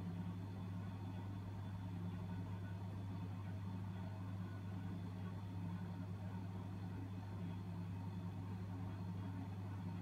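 Transparent-door display cooler's refrigeration unit running with a steady low hum and a fainter, wavering layer above it.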